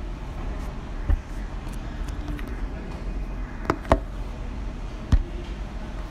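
Steady low background hum of a café interior, with a few sharp knocks: one about a second in, two close together near four seconds and one about five seconds in.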